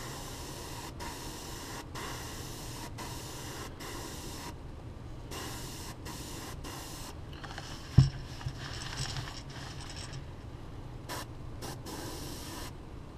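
Airbrush spraying a thin coat of gray paint through a loofah scale mask, a steady hiss with several brief breaks. A single sharp thump comes about eight seconds in.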